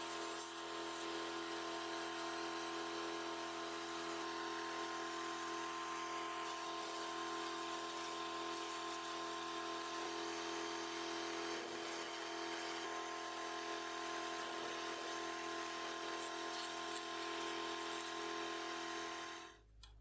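Pulsed fibre laser cleaning aluminium moka pot parts: a steady, even buzzing whine with hiss that cuts off suddenly near the end.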